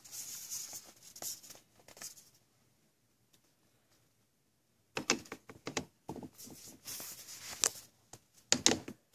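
Handling noise as an iPad mini is set into a plastic truck dash bezel: a soft rustle at first, a pause, then a run of small clicks and knocks in the last four seconds as the tablet is fitted into the frame.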